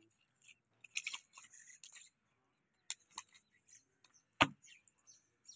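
Knife slicing through a chunk of beef on a wooden chopping block: faint scraping cuts over the first two seconds, a small click near three seconds, and one sharp knock on the block about four and a half seconds in.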